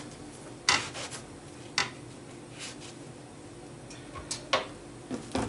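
Kitchen work with cookware: about five short scrapes and knocks, spaced a second or so apart.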